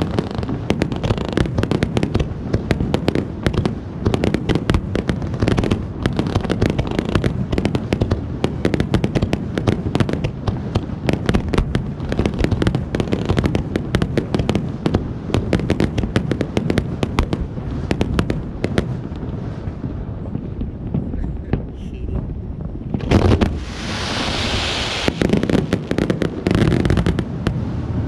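Fireworks crackling in a dense, continuous rattle of rapid pops, with a loud hissing rush for a couple of seconds near the end.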